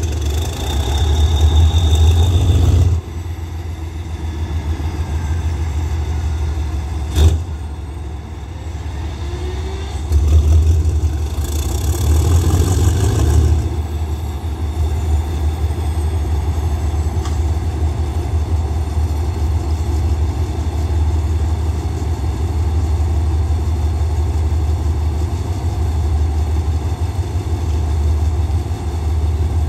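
Diesel engine of a Hitachi diesel-electric locomotive running on a test start after a breakdown. It is loud for the first three seconds, then drops, with a sharp knock about seven seconds in. It swells again from about ten to thirteen seconds in, then settles to a steady idle.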